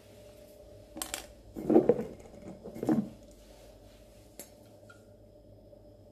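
Metal kitchen utensils clattering and knocking: a few knocks in the first three seconds, and one light tick a little later.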